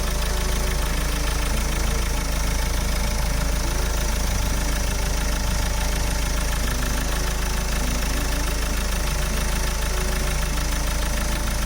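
Mahindra XUV500's turbocharged engine idling steadily, freshly started, with its whistle still there but light. The owner takes the whistle for an air or exhaust leak rather than a turbo fault.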